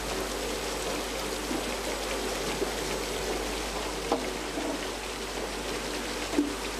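Asparagus sorting line running: a steady mechanical rush from the conveyor machinery, with a few light knocks, the loudest about six and a half seconds in.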